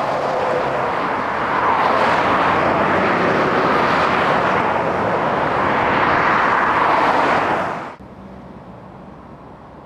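Road traffic on a dual carriageway: cars, vans and lorries passing at speed in a steady rush of tyre and engine noise. It cuts off abruptly about eight seconds in, leaving a much quieter steady background.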